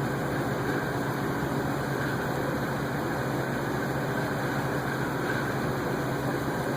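A steady mechanical hum and whir, even in level, with no knocks or clicks.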